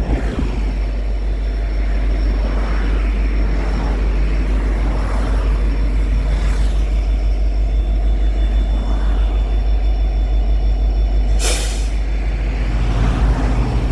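EMD 16-710-G3 turbocharged two-stroke V16 diesel of an SD70-series locomotive running steadily with a pulsing rumble. Near the end comes a short burst of air hiss, about half a second long.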